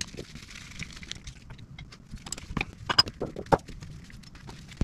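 Small metal carburetor parts and hand tools clicking and clinking as the carburetor is being taken apart on a workbench, with a cluster of sharper taps about halfway through.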